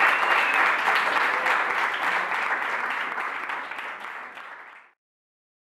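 Small audience applauding, the clapping fading gradually and cut off abruptly to silence about five seconds in.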